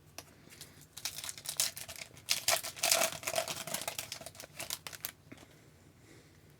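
Foil trading-card pack wrapper crinkling and tearing as it is handled and opened: a dense run of small crackles that stops about five seconds in.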